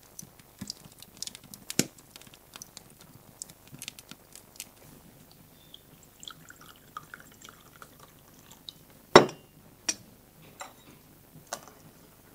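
Wood fire crackling in a fireplace with quick sharp pops, then tea being poured from a porcelain teapot into a china cup. A little after nine seconds comes one loud clink of china, followed by a few lighter clinks.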